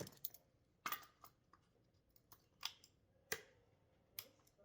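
Faint, irregular sharp clicks and light taps, about ten of them, with near silence between.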